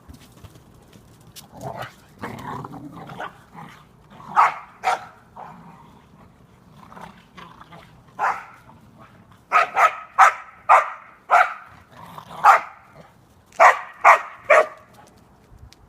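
Australian Shepherds barking in play: a dozen or so short, sharp barks, a few at first, then coming in quick succession in the second half.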